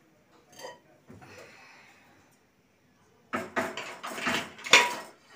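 Cookware clattering against a wire dish rack as a kadai (wok) is set into it: a faint clink early, then a run of knocks and clanks in the second half, the loudest one ringing briefly.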